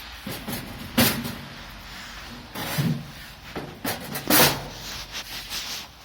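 Several sharp knocks and clunks, the loudest about a second in and at about four and a half seconds.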